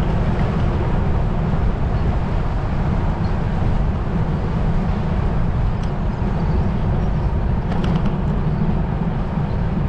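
Wind buffeting the microphone of a camera on a moving road bike, a steady low rumble, with a couple of faint clicks about six and eight seconds in.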